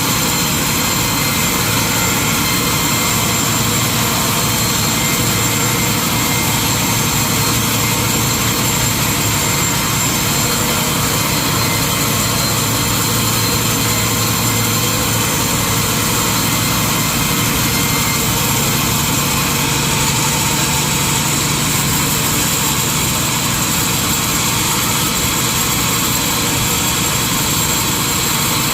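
Sawmill machinery running steadily: an even, loud mechanical drone with a constant whine, no pauses or changes.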